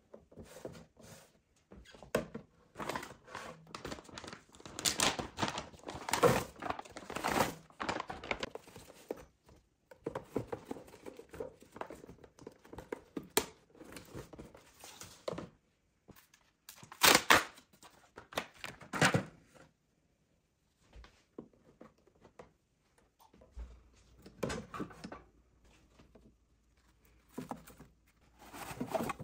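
Clear plastic organiser bins being handled, knocked and set down on a countertop, with cloths and sponges rustling as they are packed in. The knocks and crinkles come at irregular moments, with a few sharper knocks.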